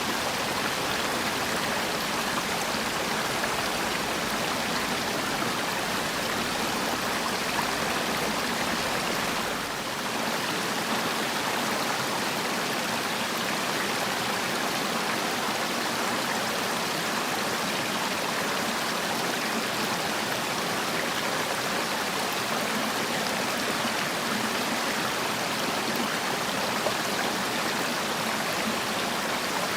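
Mountain valley stream flowing over rocks: a steady, continuous rush of water. It dips briefly about ten seconds in.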